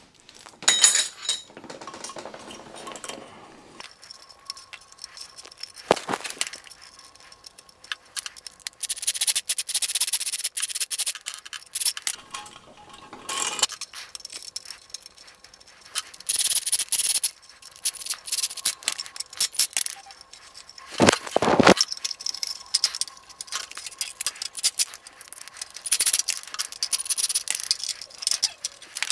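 Metal worm-drive hose clamps clinking, jangling and scraping as they are wrapped around a bicycle frame tube and tightened, with several louder stretches of rattling and a few abrupt cuts.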